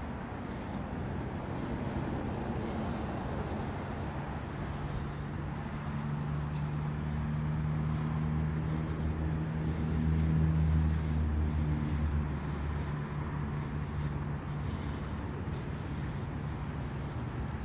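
A car engine idling, a steady low hum that grows louder about halfway through and then fades, over outdoor background noise.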